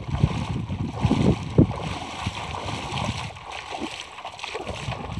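Gusty wind rumbling on the microphone over the splash and lap of shallow river water as a person wades through it. A few sharper splashy bumps come in the first two seconds.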